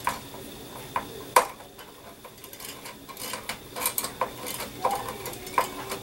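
Screwdriver clinking and scraping against the metal screws of a CPU heatsink as they are being fitted: a series of sharp, irregular metallic clicks.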